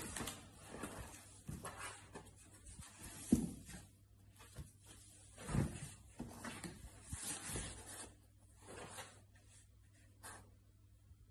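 Cat shifting about inside a cardboard box: faint scratching and rubbing on the cardboard, with a few soft thumps, the loudest about three and five and a half seconds in.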